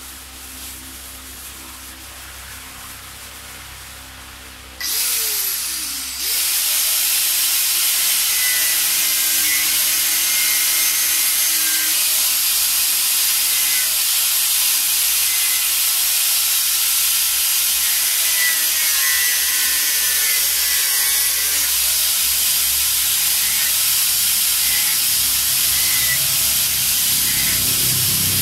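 Handheld power tool cutting away the rough excess edge of a fiberglass helmet shell. It starts about five seconds in with a short burst, dips, then runs steadily with a loud hiss, its pitch wavering slightly as it cuts.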